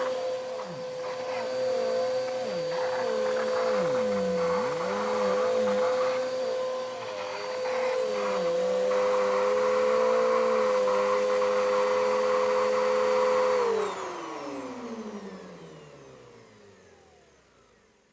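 Vacuum cleaner running with a steady motor whine, its lower tone dipping and wavering in pitch several times. About fourteen seconds in it is switched off, and the motor winds down, its pitch falling away to silence.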